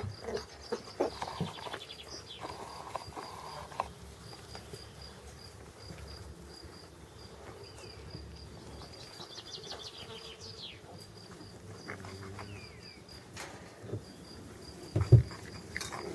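A faint, high chirping repeats steadily at about three chirps a second, with short rustles and light knocks from puppies scuffling in the grass and one loud thump about fifteen seconds in.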